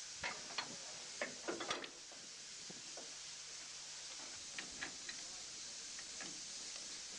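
Light clicks and knocks from hands-on work around a steam tank locomotive, bunched in the first two seconds and again a few short ones in the middle, over a steady hiss.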